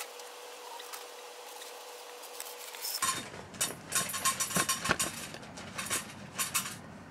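A faint steady hum, then about three seconds in the camera is picked up and moved around: a quick run of knocks, clicks and rubbing handling noise.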